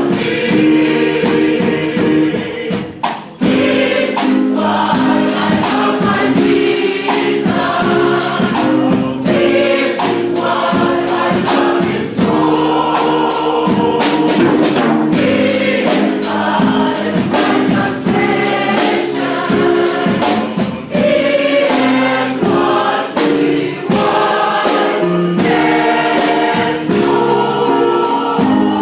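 A choir singing a Christian worship song over instrumental accompaniment with a steady beat.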